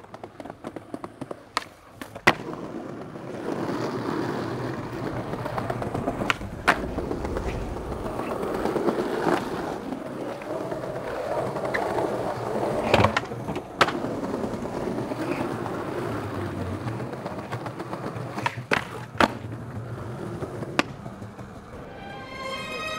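Skateboard wheels rolling over concrete, broken about nine times by sharp clacks of the board popping and landing tricks, several of them in quick pairs.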